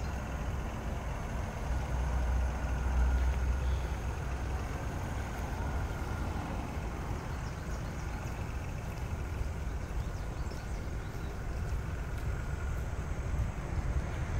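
Steady low outdoor rumble with no distinct events, a little louder between about two and four seconds in.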